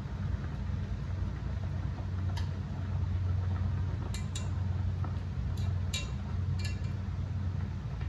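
A steady low hum, with several light clicks, mostly in the second half, as plastic chopsticks stir noodles against the side of a steel pot of boiling water.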